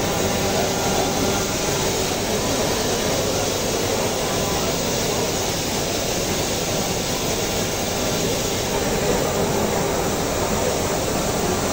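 Steady machine-hall din of running machinery and crowd voices, with a faint steady tone in it and no distinct impacts.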